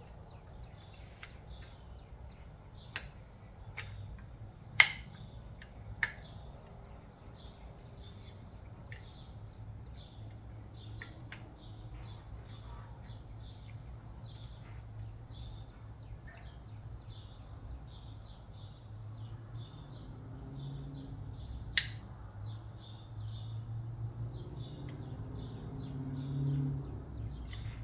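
A few sharp metallic clicks as the chrome air-cleaner cover and its hardware are handled and fitted, the loudest a little under five seconds in and another near 22 seconds. Small birds chirp faintly and often in the background over a low steady hum.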